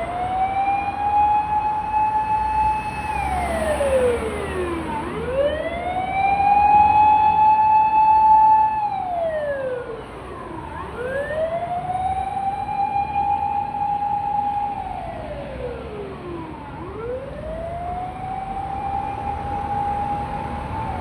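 Fire engine siren wailing on an emergency run: each cycle winds up to a high held tone, holds for about two to three seconds, then slides back down, repeating about every six seconds. It is loudest about seven to nine seconds in, over a low rumble of the vehicle and road.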